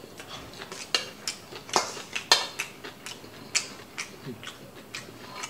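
Metal spoon clinking and scraping against a stainless steel bowl while eating, a dozen or so sharp, irregular clinks.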